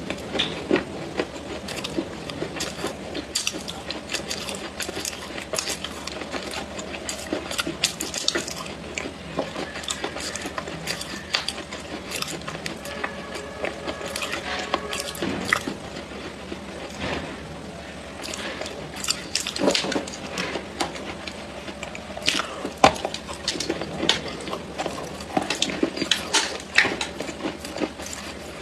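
Close-miked chewing of clay: many crisp crunches and clicks mixed with wet mouth sounds.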